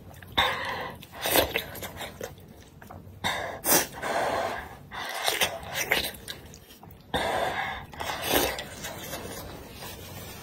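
Close-up mouth sounds of eating: a series of airy slurps as food is sucked in from chopsticks, with sharp breaths in between.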